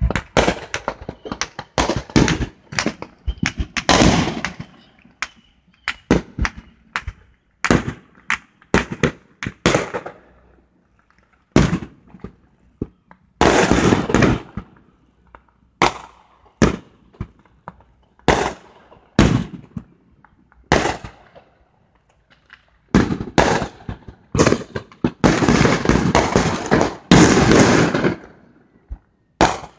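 Fireworks going off: an irregular run of sharp bangs and pops, with a dense burst of rapid bangs about halfway through and a longer one lasting a few seconds near the end.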